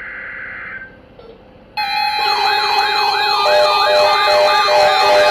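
About two seconds in, a loud mix of electronic sirens and alarm tones starts abruptly. It layers a steady tone, a fast yelp siren wailing up and down about three times a second, a slower higher wail, and a pulsing beep.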